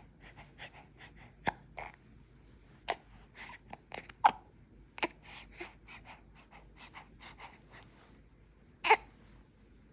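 A newborn baby hiccupping: short, sharp hiccups at irregular intervals, a louder one near the end, with soft breathing and small noises in between.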